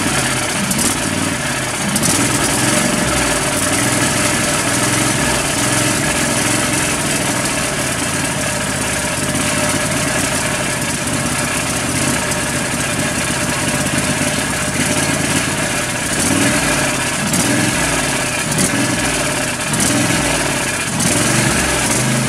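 Briggs & Stratton 26 hp V-twin lawn tractor engine running steadily, just started on choke at half throttle. This is its first run after a valve-guide repair.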